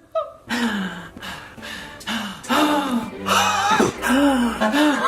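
A man gasping over and over: short, voiced gasps that rise and fall in pitch, about eight of them in quick succession, each clip cut off abruptly before the next.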